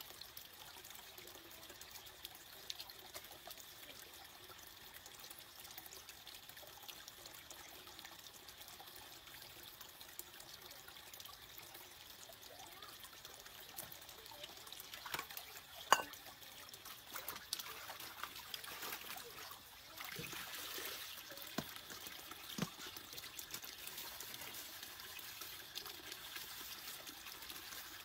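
Shallow stream water trickling faintly over rocks. Around the middle come a few sharp knocks, and in the last third louder splashing as clothes are washed in a metal basin in the water.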